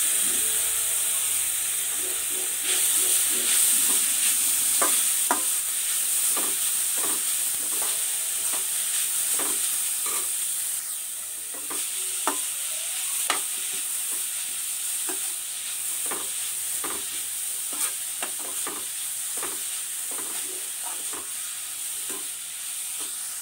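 Grated carrot sizzling in hot ghee in a stainless steel pan while a perforated metal spoon stirs it, with irregular scrapes and clicks of metal on the pan. The sizzle is loudest at first and eases gradually.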